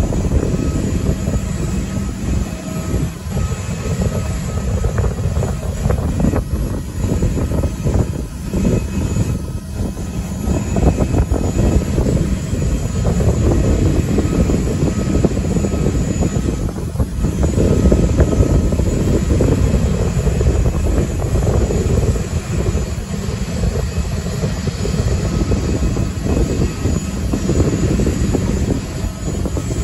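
Loud, steady aircraft engine noise with a faint high whine, mixed with wind rumbling on the microphone.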